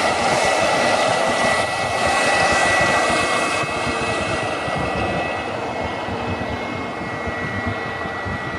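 A turbine running steadily: a high, steady whistle over a loud rushing noise, easing a little after about three and a half seconds.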